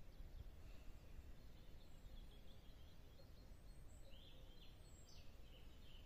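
Faint calls of small songbirds, short high chirps scattered throughout and clustered about four seconds in, over a low steady rumble of outdoor background noise.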